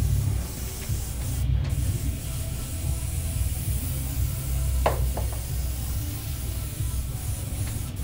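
Air-fed paint spray gun spraying waterborne basecoat: a steady hiss of air over a low rumble, with a single click about five seconds in.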